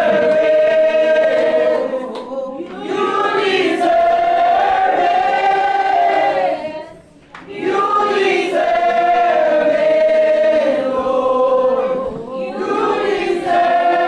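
A group of voices singing a worship song together in long held phrases, with short pauses between phrases.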